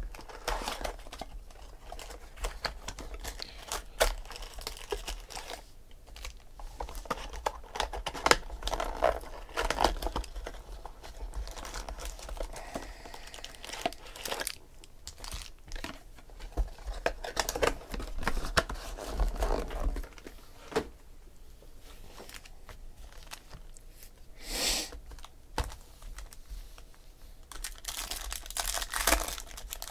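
Clear plastic bag crinkling and rustling as a Topps Finest football card box is worked out of it, with card packs handled and a pack wrapper torn open near the end.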